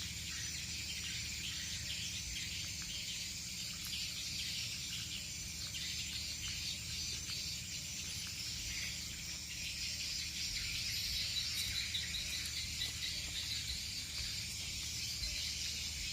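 Insects chirring in a dense, steady, high-pitched chorus, with a low rumble underneath.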